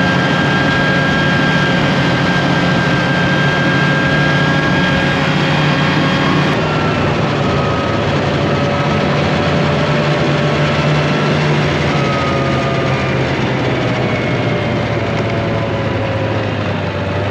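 Snowmobile engine running steadily under way, heard from the seat, with a constant drive whine over a low hum. The whine drops a little near the end.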